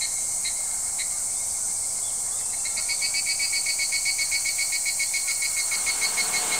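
Insects calling in a chorus: a steady high hiss under a pulsing, chirping call that becomes faster and louder about three seconds in.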